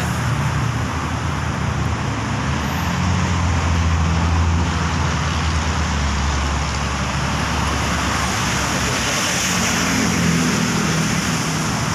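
Steady road traffic noise, with the low rumble of a vehicle going past swelling up from about three seconds in and fading by seven.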